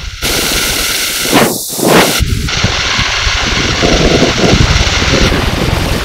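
A picture rendered as sound with Photosounder's image-to-sound synthesis: a loud, dense, harsh noise texture across the whole range. It changes abruptly a little over two seconds in and again about five seconds in.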